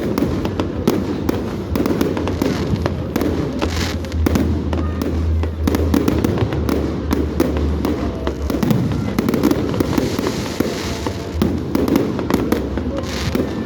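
Fireworks display going off: a dense, continuous crackle of many rapid pops and bangs, with a deeper rumble of bursting shells in the middle.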